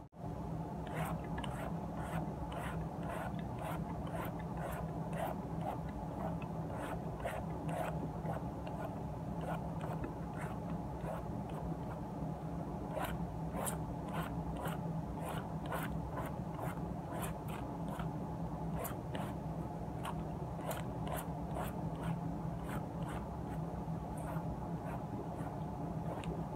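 A blade scraping the ridged green skin off a silk squash (angled luffa): a run of short, rasping peeling strokes, about one or two a second, over a steady low hum.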